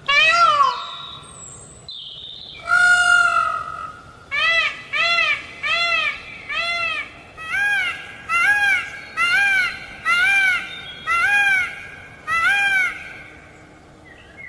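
Indian peafowl calling. It gives a loud falling call, then a longer held call, then a quick run of about a dozen short calls, each rising and falling in pitch, roughly two a second.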